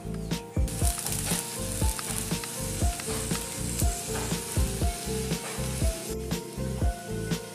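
Pointed gourds roasting on glowing embers in a clay stove, giving a steady sizzling hiss that breaks off briefly near the end. Background music with a steady beat plays under it.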